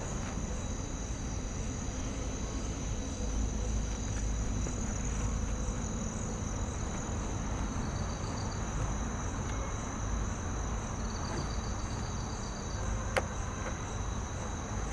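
Night chorus of crickets: a steady, high-pitched trill, with a second insect giving a short pulsing call twice, over a low rumble and a single click near the end.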